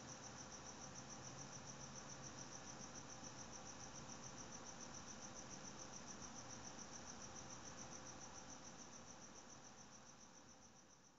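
Faint insect chirping: an even, rapid, high-pitched pulsing at about five pulses a second, fading out near the end.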